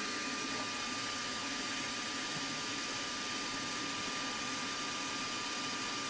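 Milling machine spindle running steadily, with a thin steady whine, while a centre drill spots a hole in a steel conrod blank.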